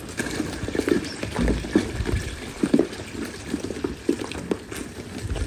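Water poured from a plastic jerrycan into a basin, splashing unevenly.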